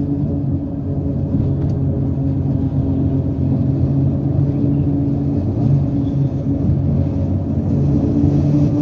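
Car tyres running over a steel grid bridge deck, heard from inside the car: a steady low rumble with a droning hum. The hum fades about a second in and swells again near the end.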